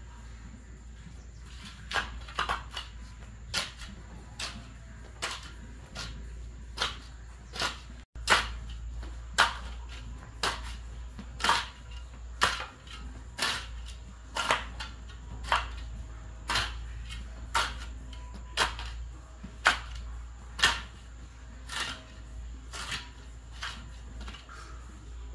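Repeated sharp knocks or strikes over a low steady hum, irregular at first and then steady at about one a second.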